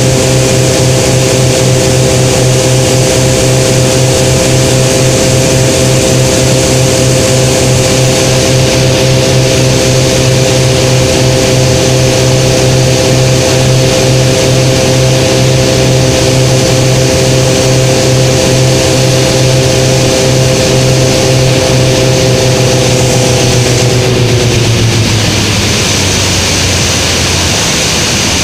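Light propeller aircraft's engine droning steadily on final approach, with air rushing past the cabin. Near the end the engine note slides down and quietens as power is pulled back for the landing.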